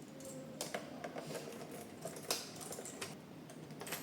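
A string of small mechanical clicks and scrapes from a mechanical key being inserted and turned in a smart lock's key cylinder, with the sharpest click a little past two seconds in.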